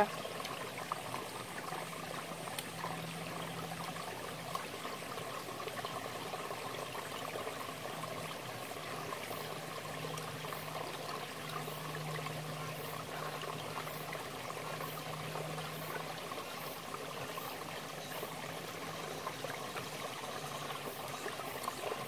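Steady rushing of a shallow mountain stream.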